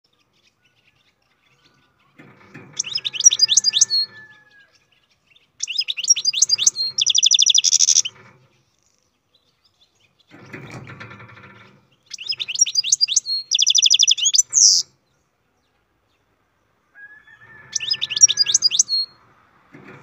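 European goldfinch singing in four bursts of rapid high twittering notes, with pauses of a second or two between them. The second and third bursts end in a fast buzzy trill.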